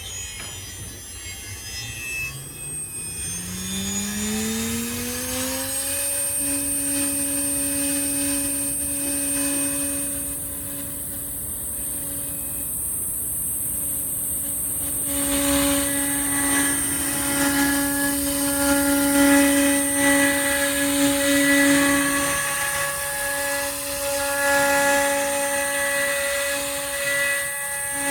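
CNC router spindle spinning up with a rising whine over about five seconds, then running at a steady high pitch. From about halfway it gets louder and rougher as the bit cuts into the wood of a cabinet door panel.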